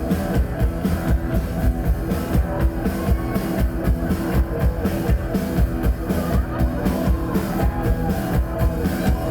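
Rock band playing an instrumental passage with no vocals: guitar, bass and drum kit with a steady beat.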